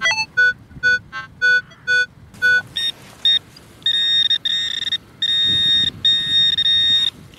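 Metal detector signal tones: short electronic beeps repeating about twice a second, then from about three seconds in, longer and higher steady tones in stretches of about a second, sounding as the target in the hole is located.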